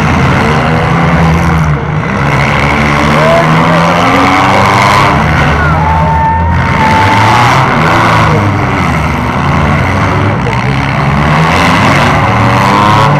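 Several demolition derby cars' engines running and revving at once, their pitch rising and falling unevenly.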